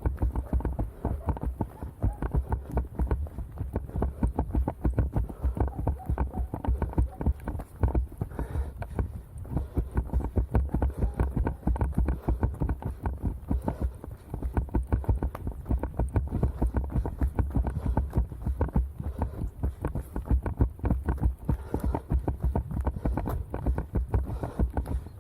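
A runner's footsteps on snow, a quick steady rhythm of footfalls with a dull low thud at each stride.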